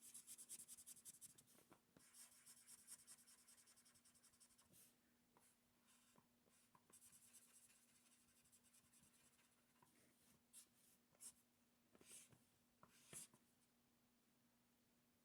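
Near silence with a faint steady hum. Faint scratching comes in the first second or so, and a few soft scrapes follow later, like a pen or marker moving on paper.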